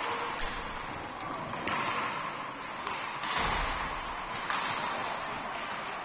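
Ice hockey rink sounds: a steady hiss of skates on the ice with sharp clacks of sticks and puck, two crisp ones about two seconds apart and a duller knock between them.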